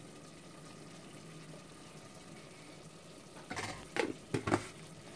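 Faint steady sizzle of food frying in a pot. About three and a half seconds in, a few sharp knocks and clicks as plastic spice containers are handled on the counter, with one more near the end.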